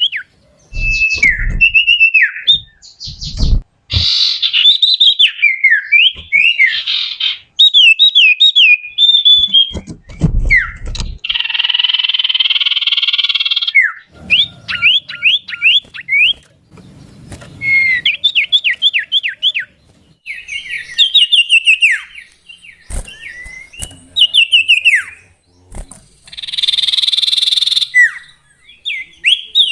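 Common iora (cipoh) singing: quick runs of short, slurred whistled notes repeated in phrases, broken twice by a harsh buzzy call. A few low thumps sound in the first half.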